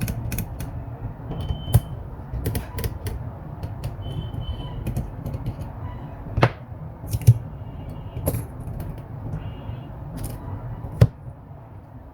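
Irregular clicks and taps from hands working on an opened Chromebook, a few of them sharper knocks, over a steady low hum.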